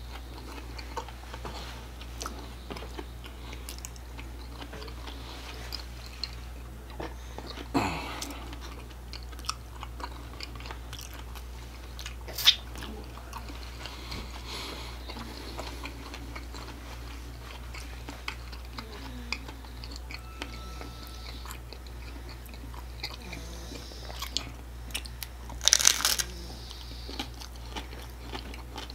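Close-miked eating sounds: wet chewing and small mouth clicks, with a few sharper crunches. The loudest, a short cluster of crunches near the end, is a bite into a crisp hard-shell taco.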